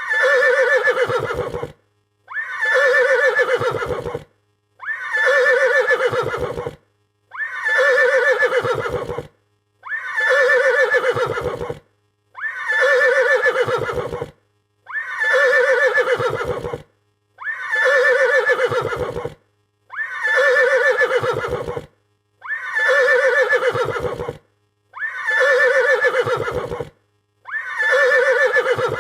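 A frightened horse neighing: one whinny about two seconds long, ending in a low flutter, repeated about every two and a half seconds, the same recording looped.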